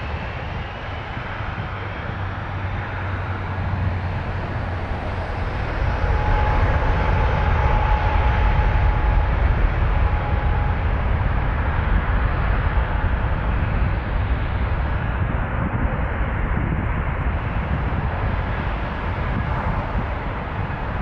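Airbus A320-232's IAE V2500 turbofan engines at takeoff thrust: a deep, steady jet rumble that swells about five seconds in, holds at its loudest for several seconds, then slowly fades as the airliner departs.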